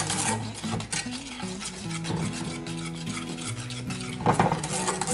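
Wire whisk stirring and scraping a thick flour-and-milk paste (tangzhong) in a small metal saucepan as it cooks into a paste: a steady rasp of quick strokes, with a louder scrape about four seconds in.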